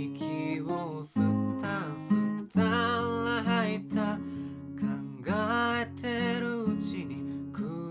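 Acoustic guitar strummed and picked as accompaniment, with a male voice singing long, held lines over it.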